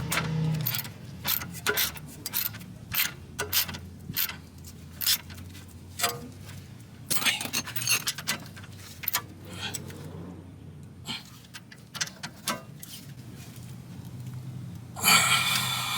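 Irregular metallic clicks and clinks of a ratchet and socket working the bolts of a rear shock absorber mount, with a brief rushing noise near the end.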